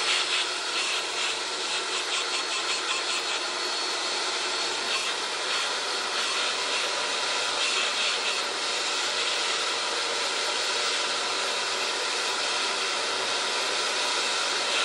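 Corded electric leaf blower running steadily, a high motor whine over the rush of air, blowing straight down onto a flat board.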